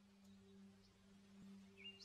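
Near silence, with only a faint steady low hum.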